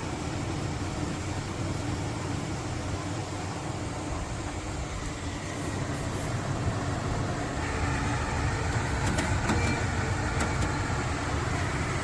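Portable air conditioner's fan running with a steady hum, getting somewhat louder about eight seconds in, with a few faint clicks near the end.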